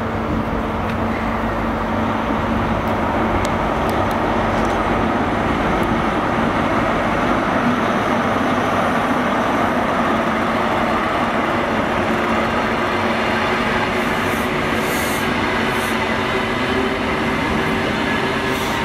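Class 43 HST diesel power car passing at close range, its engine running with a steady note, followed by the measurement train's coaches rumbling over the rails with a few light wheel clicks near the end.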